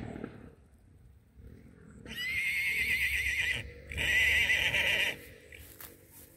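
An animal calling twice: two long, warbling calls close together, the first about a second and a half long and the second about a second.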